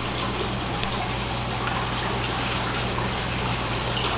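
Steady rush of running water, with a low steady hum underneath.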